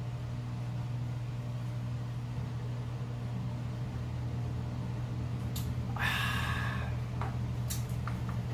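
A steady low hum fills the room throughout. About six seconds in there is a short breathy exhale after a drink, and a few light clicks of small cups being set down on the table.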